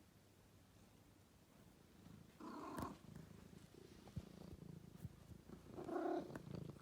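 Domestic cat purring, faint and steady, with two louder short sounds about two and a half and six seconds in.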